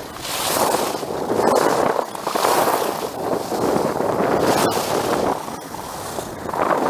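Rushing wind on the microphone mixed with the hiss of snow sliding past, swelling and easing about once a second, with a few sharp clicks.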